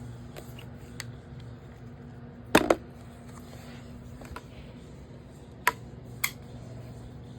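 A few sharp knocks and clicks of hard plastic as a replacement robot-vacuum battery is handled and fitted into its compartment: a loud double knock, then two single ones later. A low steady hum runs underneath.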